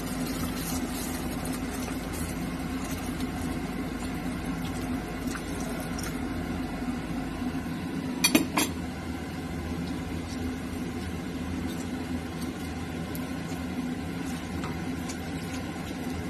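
Kitchen cooking sounds at a stainless-steel pot: liquid poured in and a spoon stirring the soup, over a steady low hum, with two or three quick clinks of the spoon against the pot about eight seconds in.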